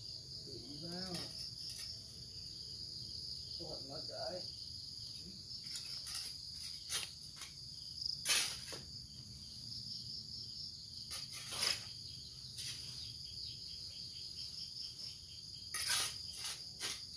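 Insects chirring steadily at a high pitch, with a few short scraping strokes of a hand tool digging into leafy soil, the loudest about eight seconds in and another pair near the end.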